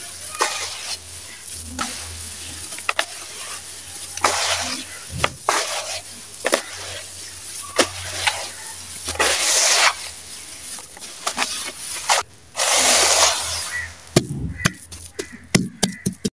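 Damp sand-and-cement mix squeezed and crumbled by hand: gritty crunching and rustling in several longer bursts, with short crackles of falling grains and lumps in between.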